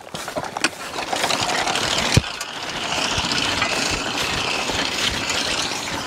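Horse-drawn sickle-bar mower starting to cut hay: its knife and gearing set up a steady rapid clatter that builds over the first couple of seconds, with a sharp knock about two seconds in.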